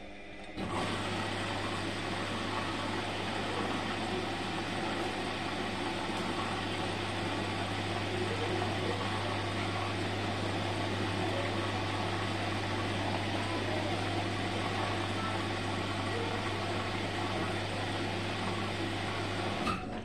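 Bosch Serie 4 front-load washing machine running with a steady low hum over a rushing noise. It switches on abruptly about half a second in and cuts off just before the end.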